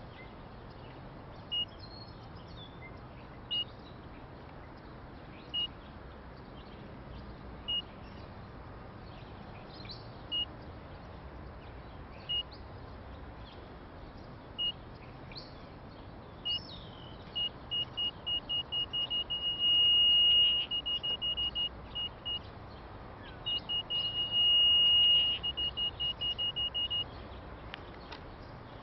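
Electronic beeper sounding one high-pitched tone: single beeps about every two seconds at first, then quickening into rapid beeping about two-thirds of the way in, twice running into a continuous tone before breaking back into fast beeps.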